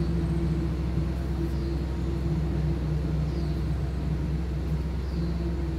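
Steady low mechanical hum of a running motor or engine, with a pitched drone that swells and fades slightly. Faint short high chirps come about every two seconds.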